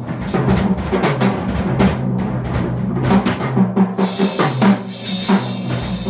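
Live free jazz: a drum kit played in fast, busy strokes over low sustained double bass notes, with a cymbal wash building from about four seconds in.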